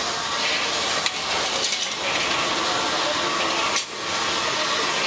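Combat robots fighting in an arena: a steady hissing noise with a few sharp knocks, the loudest about four seconds in.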